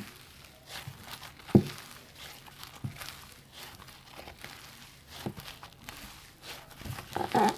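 Faint rustling with a few soft clicks, the loudest about one and a half seconds in.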